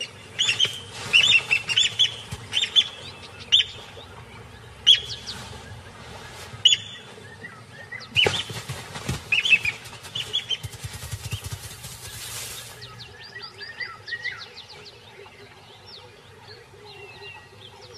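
Plovers giving loud, sharp, repeated calls as they attack a monitor lizard near their nest, with a rustle of beating wings around the middle. The calls are densest in the first half and turn softer and quicker near the end.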